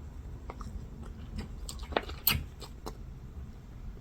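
A person chewing a mouthful of fish, with soft wet mouth sounds and a few sharper clicks and smacks about two seconds in.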